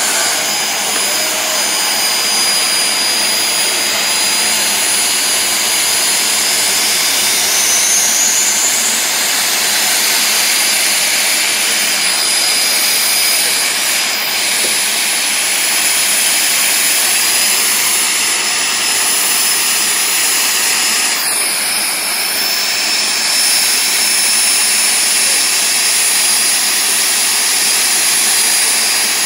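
Jet car turbine engines running at the starting line: a loud, steady roar with a high, constant whine on top.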